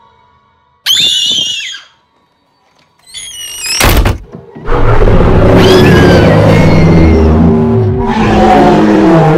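A child's high scream, a sharp bang about four seconds in, then a loud sustained din of children growling and screaming as zombies.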